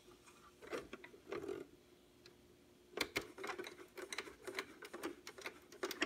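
Faint irregular clicks and crackles over a low steady hum from a 1959 Admiral Y3048 tube AM clock radio, sparse at first and coming thick and fast from about three seconds in.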